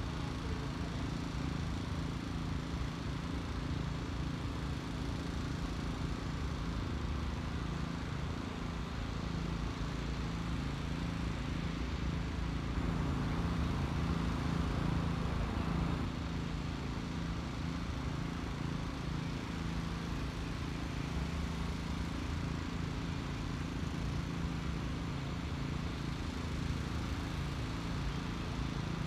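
Steady low machine hum with a constant drone under a broad rushing noise, swelling a little about halfway through.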